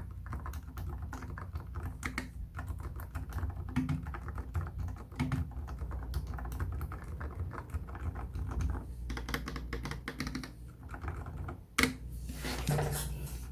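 Typing on a mechanical keyboard with soft silicone-covered keycaps over silent switches (Gateron Silent Brown and Boba U4T): a fast, irregular run of muted key clicks, with one louder stroke near the end.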